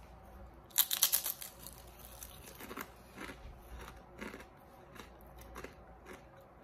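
A person biting into a kettle-cooked Ruffles potato chip: a cluster of loud crunches about a second in, then fainter crunching as it is chewed.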